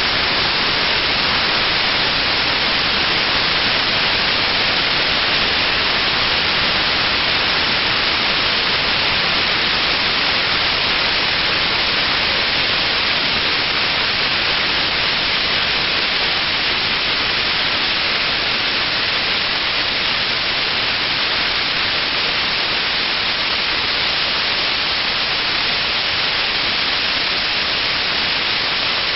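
Waterfall plunging into its pool: a loud, steady rush of falling water with no change.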